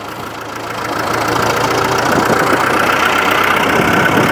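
Massey Ferguson tractor engine running just after being roll-started, getting louder over the first couple of seconds and then holding steady.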